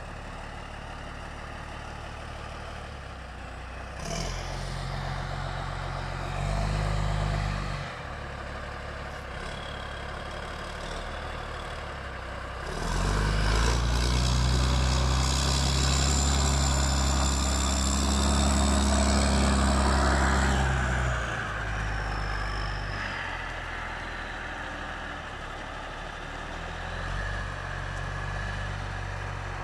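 Motor grader's big turbocharged diesel engine running as the machine drives, with a short rise in revs early on. About halfway through it pulls harder and louder for several seconds, with a high turbo whistle over the engine note, then eases off as the whistle winds down.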